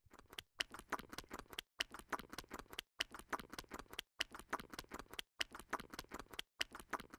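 A quiet run of fast clicks in evenly repeating groups, about one group every 1.2 seconds, each group followed by a brief gap.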